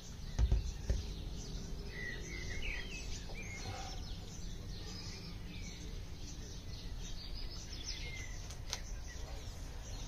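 Songbirds chirping over a steady low outdoor rumble, with two dull thumps about half a second and a second in.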